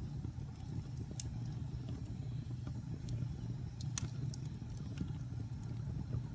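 Fire burning in a fireplace: a steady low rumble of flames with scattered sharp crackles and pops, the loudest about four seconds in.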